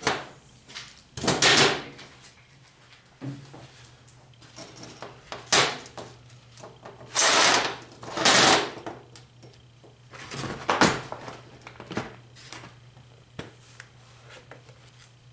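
Workshop handling noises on a steel diamond-plate workbench: a string of short scrapes, rustles and knocks as metal parts and welding gear are picked up and set down. A low steady hum starts a little after three seconds in and continues.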